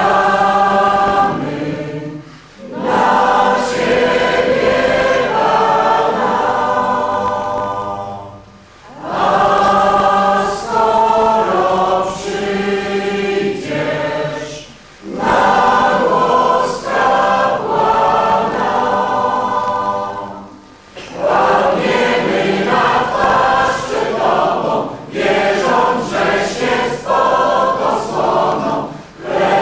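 Mixed parish choir of men and women singing a Polish Christmas carol, in phrases of about six seconds with brief pauses for breath between them.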